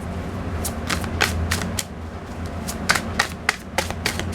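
Tarot cards being shuffled by hand: irregular sharp snapping clicks, several a second, over a steady low hum.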